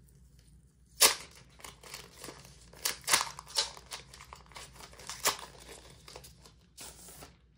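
Clear plastic sleeve crinkling and crackling as it is unfolded and opened by hand, in a string of sharp crackles, the loudest about a second in, with a short rustle near the end.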